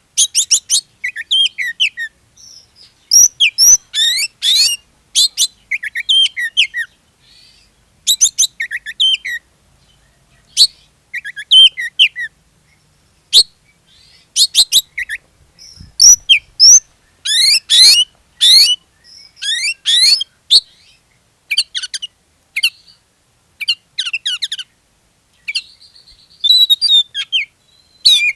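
Oriental magpie-robin singing in full 'gacor' form: loud, fast phrases of varied high whistles and chirps, broken by short pauses. This is the kind of song played as a lure to set other magpie-robins singing.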